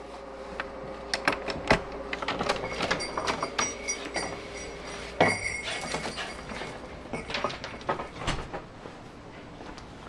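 A dog playing fetch with a ball on artificial turf and brick steps: a busy run of knocks, taps and scuffles, with a sharp knock about five seconds in and a couple of brief high squeaks.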